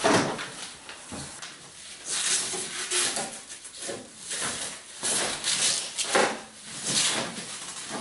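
Plastic wrapping rustling and crinkling in repeated bursts as it is pulled off a new coffee machine.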